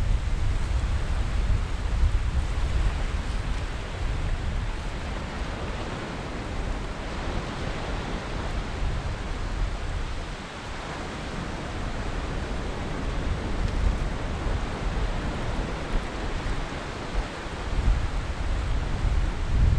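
Small waves washing steadily on a shallow, flat shore, with wind buffeting the microphone in gusts. The gusts are strongest at the start and again near the end.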